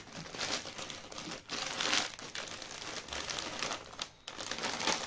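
Plastic bread packet crinkling as slices of sandwich bread are pulled out of it, in uneven spurts, with a brief stop about four seconds in.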